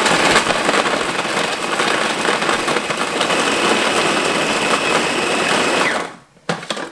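Countertop food processor running, chopping raw abalone with salt, garlic and chilli into fine chunks, then stopping about six seconds in. A steady high whine joins the motor noise partway through, and a couple of clicks follow near the end.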